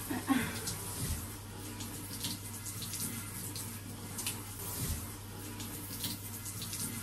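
Water spraying from a handheld shower head onto a husky's legs and feet as they are rinsed: a steady hiss of running water.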